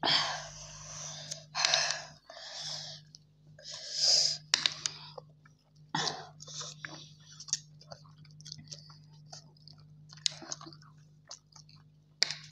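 Two people eating spicy Korean instant ramen: slurping noodles and chewing, with many short wet clicks of mouth noise. A few loud breathy sounds come in the first half, and a steady low hum runs underneath.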